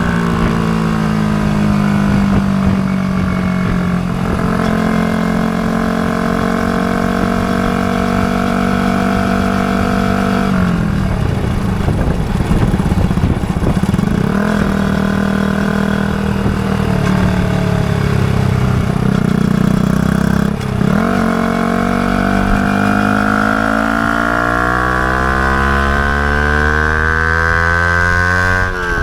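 Yamaha YZF-R125's single-cylinder 125 cc four-stroke engine running through a Mivv GP Pro exhaust with its dB killer fitted. The engine note sags slowly for about ten seconds, drops off sharply twice, and then climbs steadily in pitch over the last seven seconds.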